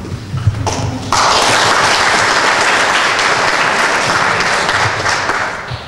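Audience applauding: the clapping swells sharply about a second in, holds steady, and dies away near the end.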